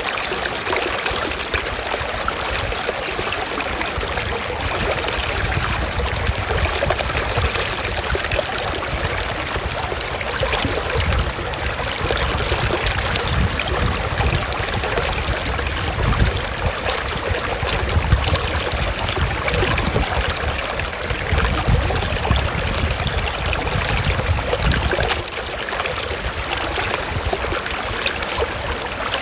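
Running water flowing steadily, like a stream, with a low rumble that comes and goes through the middle.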